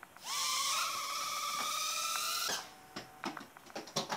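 Cheerson CX-10 nano quadcopter's tiny motors and propellers spinning up with a high whine on a hand launch, pitch gliding up at the start, running for about two and a half seconds and then cutting off suddenly. A few light clicks and taps follow.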